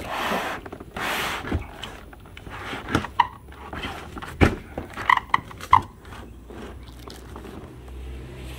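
Cardboard box and molded cardboard packaging being handled while parts of a cordless mower are unpacked: two rustling scrapes, a few sharp knocks, and short squeaks of cardboard rubbing on cardboard around the middle.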